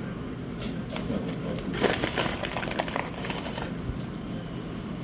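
Plastic bag of shredded cheese crinkling and rustling as it is handled, in a burst that starts about two seconds in and lasts under two seconds, over a steady low hum.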